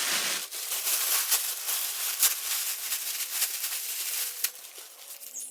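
Rustling and rattling of things being handled, with many small clicks, fading out near the end.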